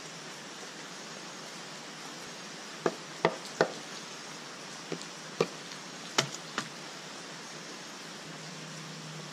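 Dry wooden sticks tossed onto a pile on dirt ground, giving about seven short, sharp wooden knocks spread over a few seconds from about three seconds in, over a steady hiss.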